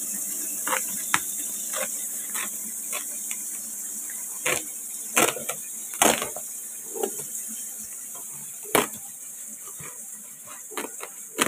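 Scissors cutting through a woven polypropylene sack, an irregular series of sharp snips with the plastic crinkling.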